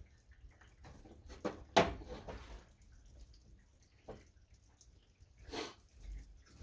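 Scattered light clicks and knocks of hands and tools working on tractor parts, the sharpest one about two seconds in and another near the end.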